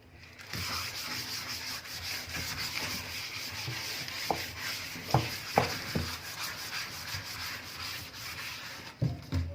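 Crumpled aluminium foil scrubbed back and forth over a soapy stainless steel sink, a steady scratchy rubbing, with a few light knocks about halfway through.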